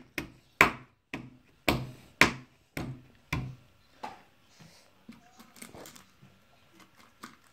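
A toddler's hand slapping a wooden tabletop about seven times, roughly twice a second, each slap a sharp knock. After about four seconds come only faint small clicks and rustles as his hand picks snacks from a plastic bowl.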